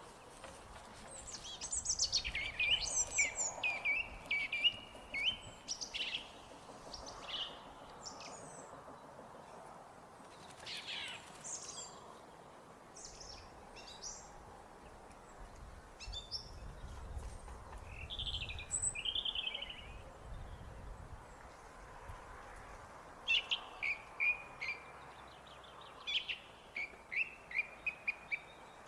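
Song thrush singing: short phrases of quick notes, several repeated two or three times in a row, with pauses between the phrases.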